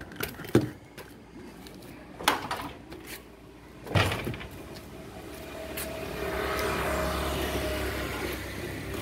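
Mini pressure washer set down on a concrete floor with a couple of knocks. About four seconds in it is switched on for a test run of its freshly rewound motor, which hums and runs steadily, growing louder over the next two seconds.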